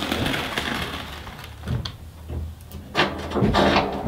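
Hands handling a diamond-plate metal floor: knocks and scraping about three seconds in, over a steady hiss.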